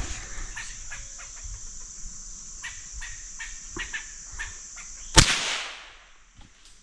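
A squirrel barking in a series of short, sharp calls, then a single loud .22 rifle shot about five seconds in, with a steady high insect drone behind.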